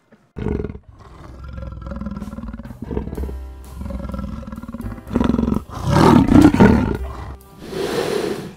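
A large animal roaring in repeated bursts, loudest about six to seven seconds in, over background music.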